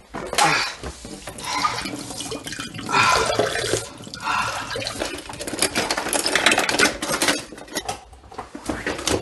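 Kitchen tap running into a stainless-steel sink while hands are rinsed under it, the splashing coming in uneven swells.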